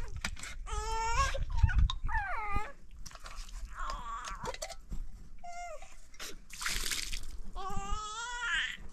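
An animal calling with repeated high, wavering cries, about six of them spread over several seconds.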